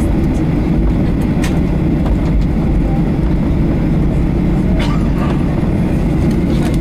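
Steady low rumble inside the passenger cabin of a Boeing 737-800 taxiing, its CFM56 jet engines running at low taxi thrust, with a few faint ticks.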